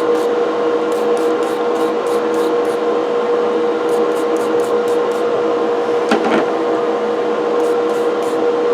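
Wire brush scrubbing a cast-iron coffee grinder burr in quick strokes, in runs of about five strokes a second, over a steady mechanical hum. A single knock comes about six seconds in.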